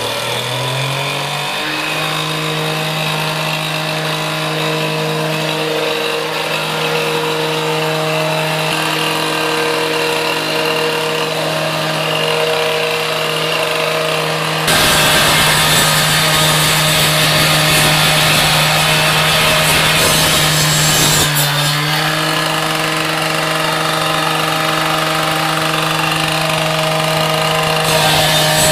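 Handheld rescue cut-off saw spinning up and running at a steady high pitch, then cutting into a brick wall with a loud grinding hiss from about halfway in for some six seconds. Its pitch dips briefly before it runs on, and it bites into the wall again near the end.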